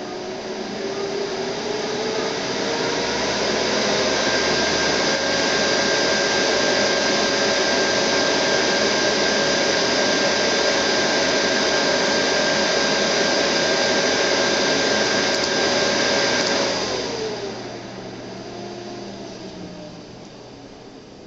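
Alienware Aurora desktop's cooling fans spinning up with a rising whine, then running loud and steady like a jet about to take off. About 17 seconds in they spin down, the whine falling and the noise dropping to a quieter rush.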